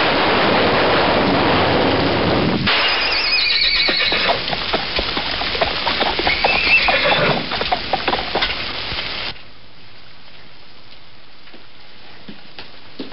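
Heavy rain with a rumble of thunder, loudest in the first three seconds. A horse then whinnies a couple of times over the rain, with hooves clopping. About nine seconds in the rain drops to a quieter steady hiss.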